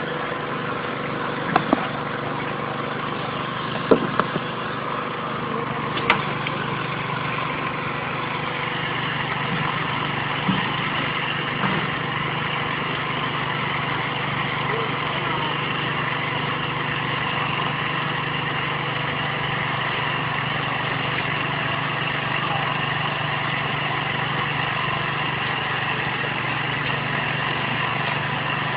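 Small petrol engine of a portable concrete mixer running steadily at a constant speed. A few sharp knocks in the first six seconds.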